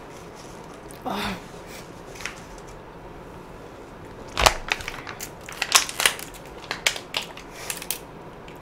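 A sharp click about halfway through, then an irregular run of close-up crackles and clicks for a few seconds, from a water jelly dessert being handled and eaten.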